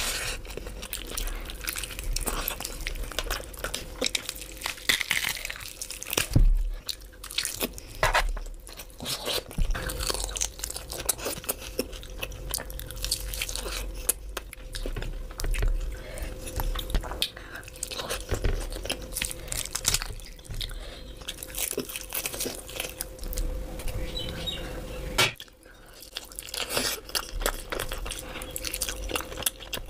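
Close-miked chewing and biting of meat and rice eaten by hand, with irregular wet mouth clicks and crunches, over a faint steady hum.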